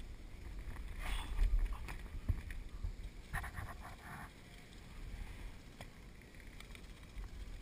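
Wind and handling rumble on a head-mounted action camera's microphone, with scattered clicks. About three and a half seconds in there is a brief rapid rattle of clicks.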